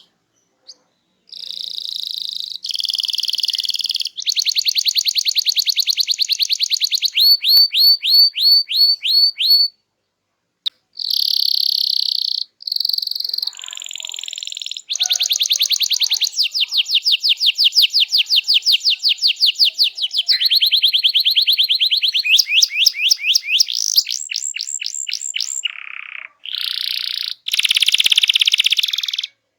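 Domestic canary singing loud, high-pitched phrases of fast trills and rapidly repeated whistled notes, broken by short pauses near the start and about ten seconds in.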